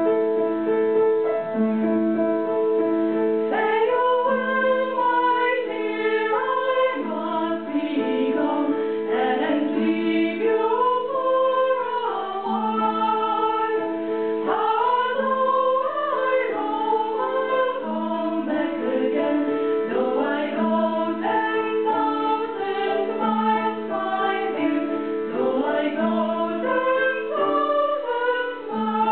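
Piano accompaniment with held chords, joined about three and a half seconds in by four women singing together.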